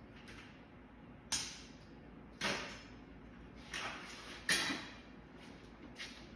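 Metal parts of an air-conditioning unit being handled during dismantling: a string of short scraping and sliding noises, about five, each fading within half a second.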